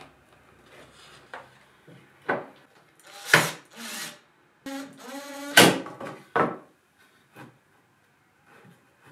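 Wooden boards being handled and knocked against a timber frame, with several sharp knocks and scrapes, and a cordless drill whirring for about half a second in the middle.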